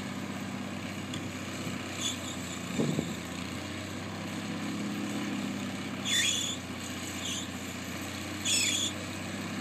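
Small backhoe's engine running steadily while digging, with a single clunk about three seconds in and several short high-pitched squeals in the second half.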